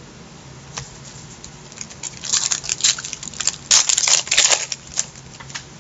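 Trading card pack wrapper crinkling and crackling as it is handled, in a cluster of short bursts between about two and five seconds in.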